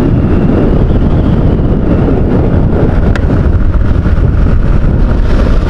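Heavy wind buffeting on the microphone of a motorcycle riding at road speed, a steady low rumble with the bike's engine and tyre noise underneath.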